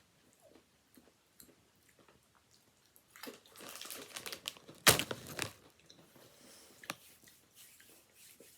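Kettle-cooked sea salt potato chips being bitten and chewed close to the microphone: faint crackles at first, then a burst of loud crunching about three seconds in, with one sharp crack near the middle, and a few smaller crunches after.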